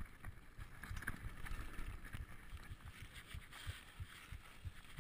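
Mountain bike rolling over a dirt forest trail: irregular low knocks and rattles from bumps over a light hiss of tyres on the ground.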